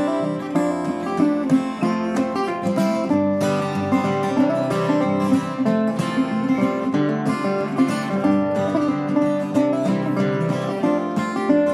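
A resonator guitar and a steel-string acoustic guitar playing a tune together, with plucked notes running over chords.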